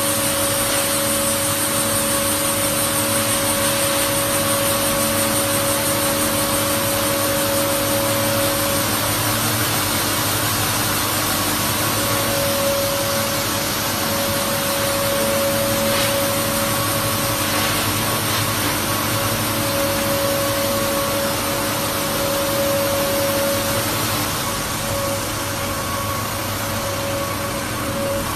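Vertical plastic colour mixer running: a steady machine hum with several held tones over a continuous rush of noise. One mid-pitched tone fades out and comes back a couple of times.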